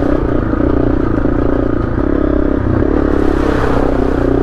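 Honda CRF250L's single-cylinder engine running steadily as the bike is ridden, its note wavering slightly a little past the middle.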